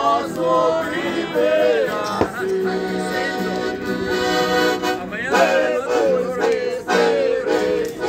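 Piano accordion playing a tune live with an acoustic guitar, and voices singing along.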